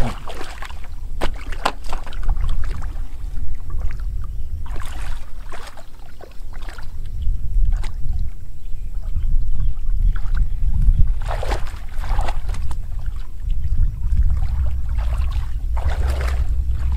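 Muddy shallow water sloshing and splashing as a man wades and gropes through it by hand, with several bursts of splashing over a steady low rumble of wind on the microphone.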